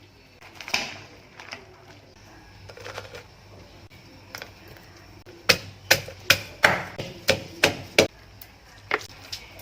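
A knife chopping on a cutting board: a few light knocks early on, then a quick run of about seven sharp, loud chops, roughly two to three a second, starting a little past the middle.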